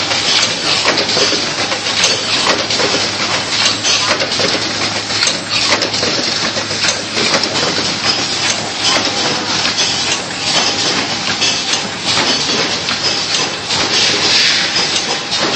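Full-automatic biscuit cartoning machine running: a dense, continuous clatter of small knocks and clicks from its moving parts over a steady low hum.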